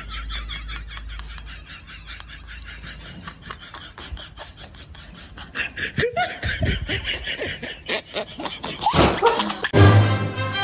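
A person laughing in quick repeated bursts, dropping to softer breathy snickers; music starts abruptly near the end.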